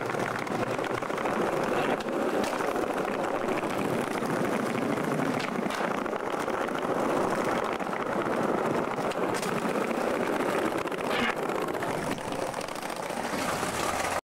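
Skateboard wheels rolling on coarse pavement: a steady rumbling roar, with a few faint clicks from the board.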